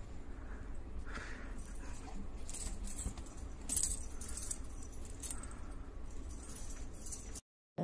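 A cat's metal collar chain and tag jingling in irregular clinks as the cat rolls and shifts about.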